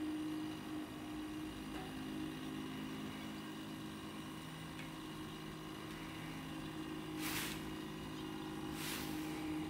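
Model chairlift running: a steady mechanical hum as the haul cable runs over the tower's sheave rollers. Two short rattles come near the end, about a second and a half apart, as chair grips pass over the rollers.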